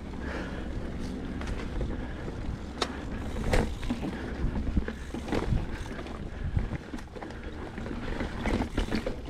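Mountain bike riding over a rocky trail: a steady low rumble of wind on the microphone, with irregular clicks and rattles as the tyres and frame hit rocks.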